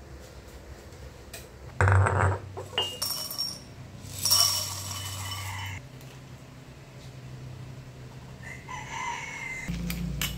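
A sudden noise about two seconds in, then two loud bird calls: a longer one about four seconds in and a shorter one near the end.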